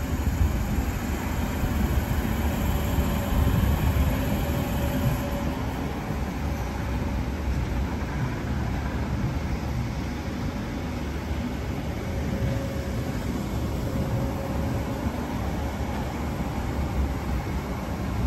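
Red Rattler heritage electric suburban train (set F1) rolling past on the near track with a steady low rumble. A faint tone rises and fades now and then.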